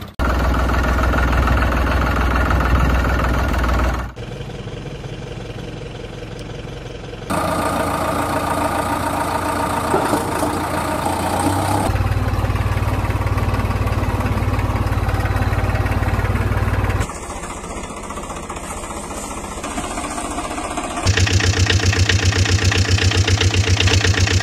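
Engine sound effects of tractors running and idling, laid over the picture and switching abruptly to a different engine sound every few seconds. Near the end an engine idles with a fast, even chugging.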